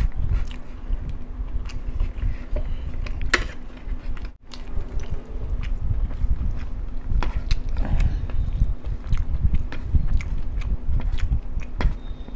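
Close-miked eating: chewing and mouth noises over masala rice and fried chicken, with many sharp clicks throughout and a brief gap in the sound about four and a half seconds in.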